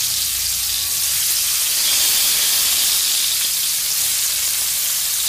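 Hot oil and spices sizzling steadily in a kadhai as chopped ridge gourd is tipped in.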